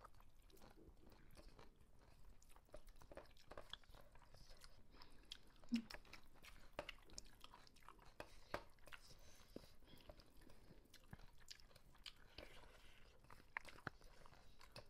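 Faint sounds of two people eating rice and chicken with their fingers: chewing, soft clicks of fingers and food against stainless steel plates, and one sharper knock about six seconds in.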